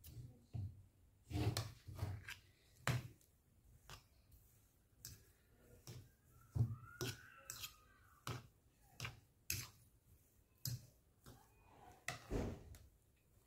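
A metal fork stirring and mashing a potato mixture in a bowl: irregular clinks and scrapes of the fork against the bowl, about one or two a second.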